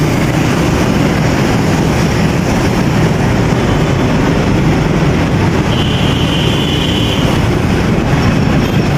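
Steady wind rush on the microphone and road noise from riding on a motorcycle through city traffic, with a faint high tone about six seconds in.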